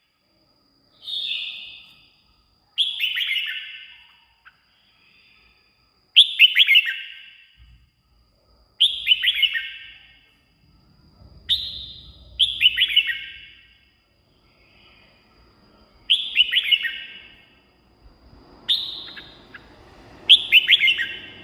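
Red-whiskered bulbul singing: short phrases of quick, clear notes sweeping downward, repeated every two to three seconds.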